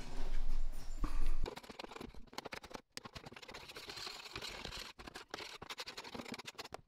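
Low handling thumps for about a second and a half, then light scraping and scratching with many small clicks as loose debris is worked across the plywood floor of an under-sink cabinet.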